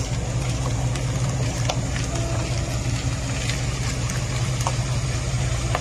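Hino Profia F17E V8 diesel truck engine running steadily at low revs, a deep even hum.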